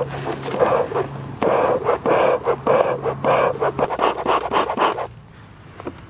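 Bee smoker's bellows being pumped to get the smoldering fuel going: a rhythmic run of breathy puffs, about two a second, with a few small clicks. The puffs stop about five seconds in.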